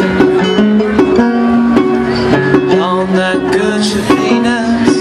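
Acoustic plucked-string accompaniment, guitar-like, playing a steady, rhythmic sea-shanty tune.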